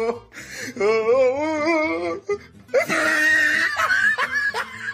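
A person laughing hard in high-pitched, wavering bursts that become a louder, shrieking laugh about three seconds in.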